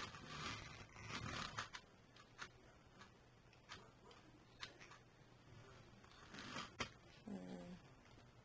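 Handling noise from a plastic toy RC car: scattered light clicks and short rustling scrapes, with a busier burst in the first second and a half and another near the end.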